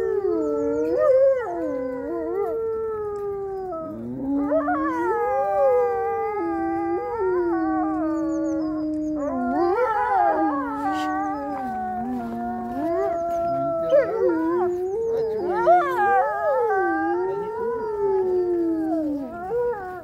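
Several grey wolves howling together in chorus: long drawn-out notes that overlap, sliding up and down in pitch, with new howls taking over after brief breaks.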